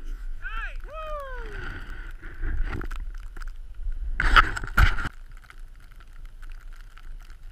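Wind and snow rumbling on an action camera's microphone, with a high whooping yell that rises and falls, twice in quick succession, about half a second in. About four and a half seconds in come two loud knocks.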